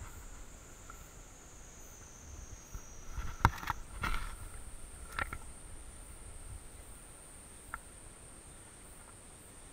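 Steady, high-pitched drone of insects in the forest. Around the middle come a few sharp knocks and scrapes, the loudest about three and a half seconds in, from the camera being handled and moved.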